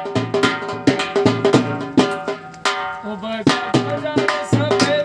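Snake-charmer's been (pungi) tune, a sustained reedy melody over a steady drum beat, played for the snake-charmer puppet's entrance.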